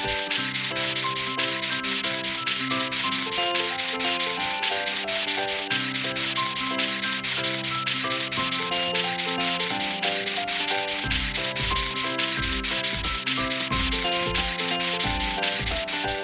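Cartoon car-wash brush scrubbing sound effect: a fast, even brushing rhythm, about five strokes a second, over a simple background tune that gains a bass line about two-thirds of the way through.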